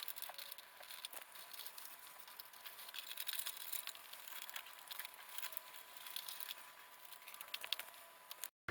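Scattered light clicks and rustling of hands handling small parts, over a faint steady high tone, cutting off abruptly near the end.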